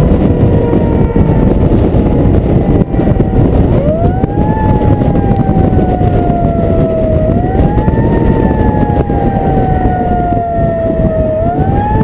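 Fire truck siren wailing: the tone winds up quickly and then slowly falls, repeating about every three to four seconds. Heavy wind and road noise from the truck moving at speed sits under it, from a camera mounted on the outside of the truck.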